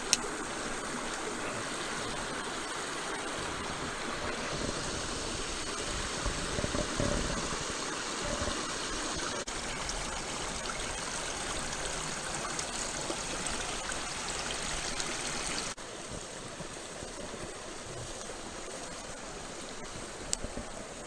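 Small mountain creek running over rocks, a steady rush of water. It drops suddenly to a somewhat quieter level about three-quarters of the way through.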